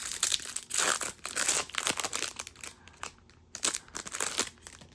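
Plastic wrapper of a basketball trading-card pack crinkling and crackling as it is handled and opened, in bursts with short pauses.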